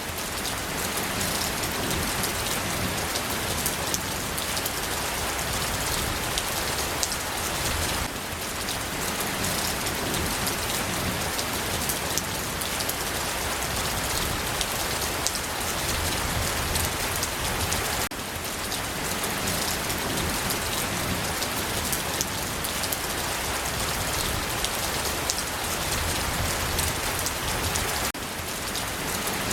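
Steady rain falling: an even hiss dotted with many fine drop ticks, dipping slightly in level about every ten seconds.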